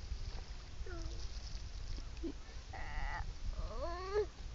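Seagull calling: a short call about a second in, a flat call near three seconds, and a rising, wavering call just before the end.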